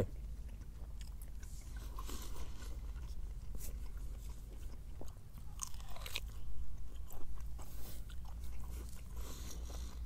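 A person biting into and chewing a thick piece of fire-grilled meat, with scattered small crunchy clicks over a low steady rumble.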